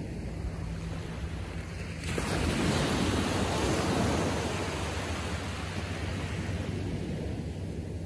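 Small waves on a calm sea breaking and washing up a sandy beach. The surf swells about two seconds in, peaks, and slowly fades as the water slides back.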